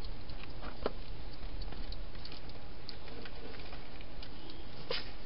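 Scattered small clicks and taps of a wild hedgehog moving about in a clear plastic feeding box, with two sharper clicks about a second in and near the end, over a steady background hiss and low hum.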